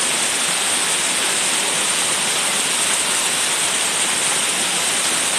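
Bigar waterfall, water pouring over its moss-covered rock dome: an even, unbroken rushing hiss of falling water.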